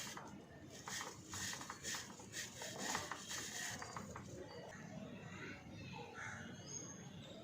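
Stiff brush scrubbing a motorcycle drive chain, a quick run of bristle strokes over the links to work off grease loosened by chain cleaner, easing off after about four seconds.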